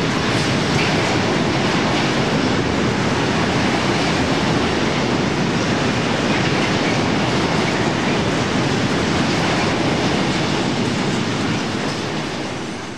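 Freight train wagons rolling slowly over station crossovers, a steady rail rumble that fades away near the end.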